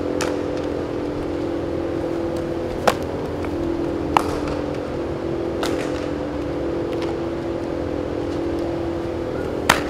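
Steady drone of large drum fans running in an indoor baseball facility, a constant hum with a low tone in it. About five sharp knocks come through it, the sounds of baseballs being hit and caught during fielding drills.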